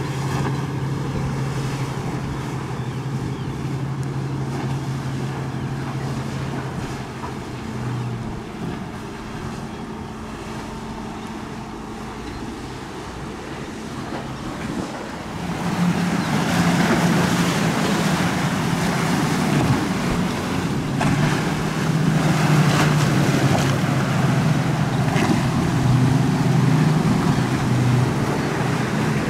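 Center console boat engines running past in an inlet: a steady engine drone that eases off around a third of the way in. About halfway through a louder boat comes by, its engine note over rushing water and wind noise, and lasts to the end.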